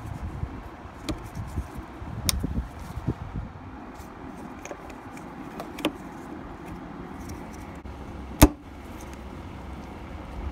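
Plastic connectors being handled and fitted onto a fuel pump assembly's top: light clicks and knocks over the first few seconds, then one sharp snap about eight seconds in as a plastic connector locks into place.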